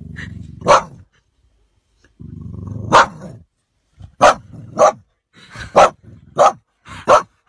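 A dog growling low and then letting out a sharp bark, twice over, followed by a run of about six barks.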